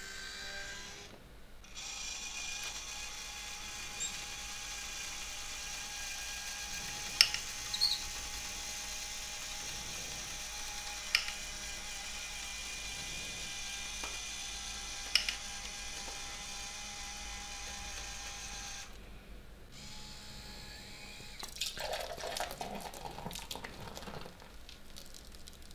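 Small electric motor of a home-made robot cart whining steadily at one pitch as it drives along its rail, with a few sharp clicks. Near the end, beer pours from a tipped bottle and splashes into a glass.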